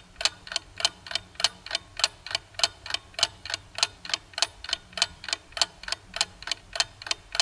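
Steady, even mechanical ticking, like a clock, at about three and a half ticks a second, over a faint low hum.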